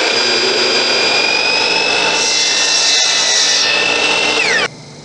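A high-speed electric power tool motor whining loudly with a steady high pitch and a rushing hiss, then its pitch falls steeply and the noise cuts off about four and a half seconds in, leaving a low hum.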